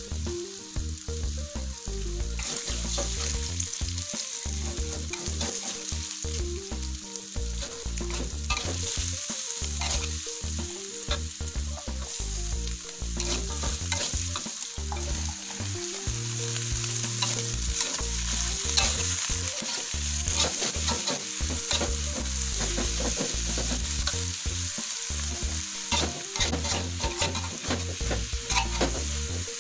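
Stir-frying in a wok: vegetables and sliced sausage sizzling steadily in hot oil, while a metal spatula scrapes and clicks against the pan over and over as the food is tossed.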